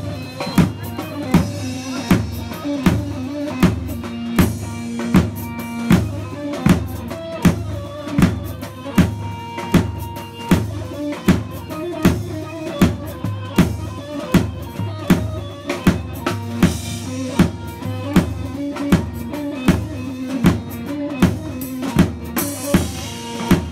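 Live grani dance tune: a drum kit pounds a steady beat, about one and a half strokes a second, under an amplified electric bağlama (saz) melody.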